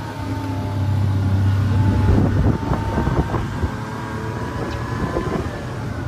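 Car driving along a paved road, heard from inside: a steady engine and road drone that eases off about two and a half seconds in, with a few light knocks and rattles from two to three and a half seconds in.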